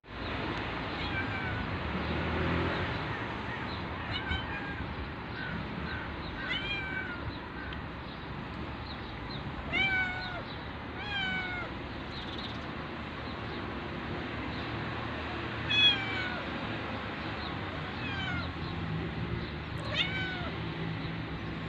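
Domestic cat meowing again and again: about a dozen short calls that rise and fall in pitch, the loudest about sixteen seconds in, over a steady low background noise.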